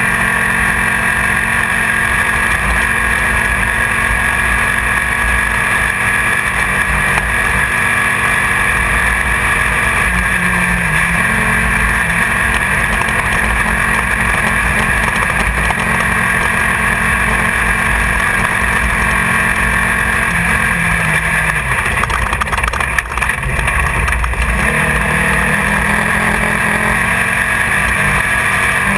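Engine of a Class 1600 off-road race buggy, an air-cooled 1600 cc Volkswagen engine, running hard under load, heard from inside the car with a steady rush of noise over it. The engine note drops and climbs back around the middle, and again about three-quarters through, where a brief clatter of knocks comes with it.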